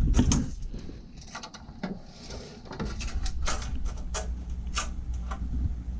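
Tape measure being pulled out and worked against the humidifier's housing: a string of light clicks and rattles, with a brief hiss about two seconds in, over a low steady hum.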